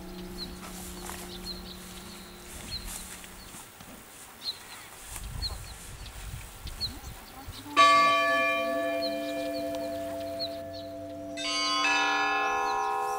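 Church bells ringing in a belfry. The ring of an earlier stroke dies away over the first few seconds. About eight seconds in a bell is struck sharply and rings on, and more bells sound together about twelve seconds in.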